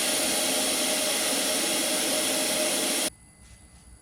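Loud, steady hiss of rushing air, which cuts off abruptly about three seconds in.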